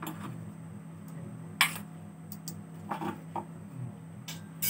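A few short, sharp clicks and taps, one louder about a second and a half in, over a steady low hum.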